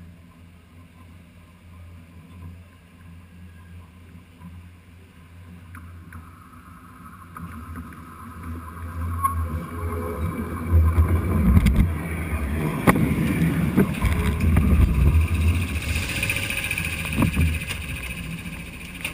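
Paris Métro train heard from between the rails as it approaches and rolls over: a low rumble that grows from about seven seconds in and turns loud once the train is overhead, with several sharp metallic clanks from the wheels and a high squeal near the end.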